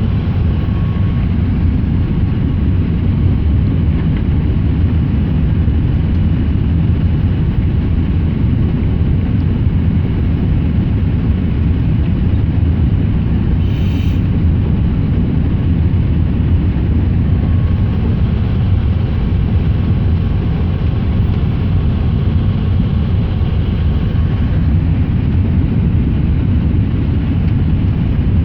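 Steady cabin noise inside an Airbus A380: a loud, even, low rumble of engines and airflow with no change in level.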